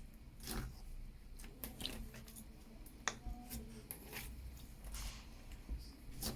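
Scattered clicks, taps and soft squelches from slime and its containers being handled, with one sharp click about three seconds in.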